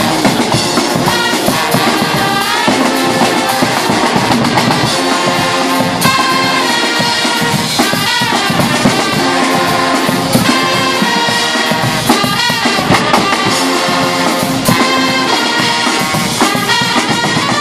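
Guggenmusik band playing loud, brassy carnival music live, with trumpets, trombones, sousaphones and baritone horns over bass drum, snare drums and cymbals.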